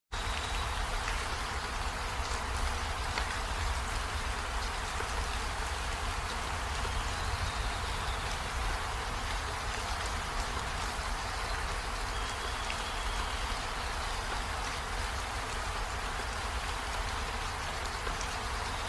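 A steady, even hiss like rain, with a low rumble underneath and no change in level.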